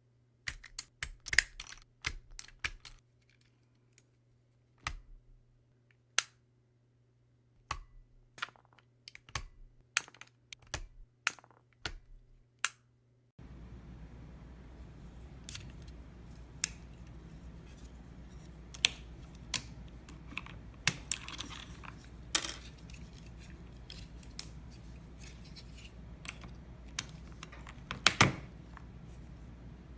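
Irregular sharp clicks and snaps of plastic keycaps and key switches on a mechanical keyboard being handled and pulled. About 13 seconds in, a steady low hum comes in behind them.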